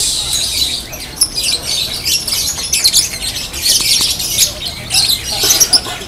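Many caged lovebirds chirping and squawking at once in a rapid, high-pitched, unbroken chatter.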